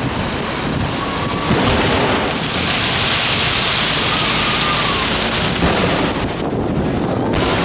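Fireworks display: aerial shells bursting, with sharper bangs about a second and a half in and again near six seconds, over a dense noisy rumble and crackle.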